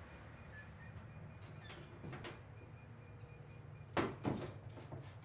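Hard plastic snorkel body knocking and scraping against a car's front guard panel as it is fitted into place, with a few soft clicks and two louder knocks about four seconds in.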